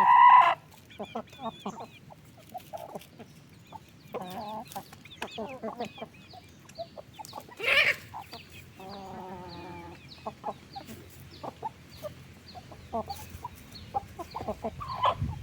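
A flock of chickens clucking and calling. There is a loud call at the very start, a loud squawk about eight seconds in, and a longer drawn-out call just after it, over a steady run of short, high, falling peeps.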